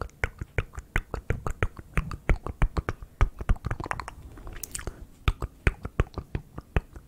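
Close-miked wet ASMR mouth sounds: rapid lip and tongue clicks and pops, several a second, with a short breathy hiss a little past halfway.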